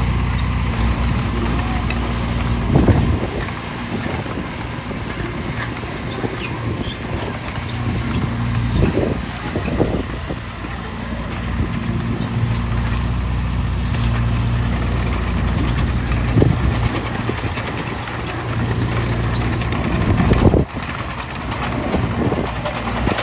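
Heavy diesel engine of earthmoving machinery, such as an excavator, running steadily, with a few short louder clunks now and then.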